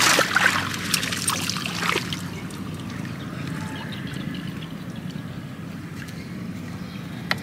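Water splashing and trickling with a few knocks in the first two seconds, then quieter water sounds over a steady low hum.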